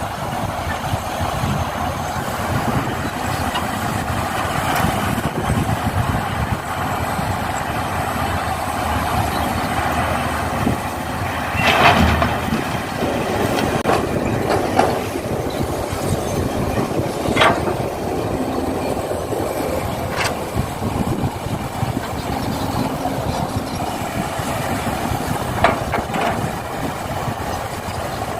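Radio-controlled model excavators and dump trucks at work: a steady mechanical drone from their drives, broken by a few sharp knocks.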